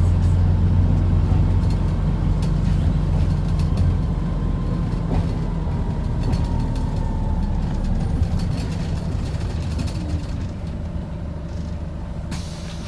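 Wright Gemini 2 hybrid double-decker bus heard from on board: a low engine hum that weakens after about four seconds, a faint whine that slowly falls in pitch, and a short hiss of air near the end.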